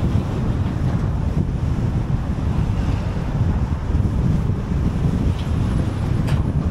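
Steady wind rumble buffeting the microphone of a car driving at expressway speed, mixed with road noise.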